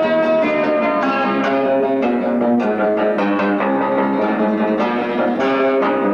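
Live acoustic ensemble music: a cimbalom struck with hammers, a nylon-string Spanish guitar and a flute playing together in quick, dense runs of notes.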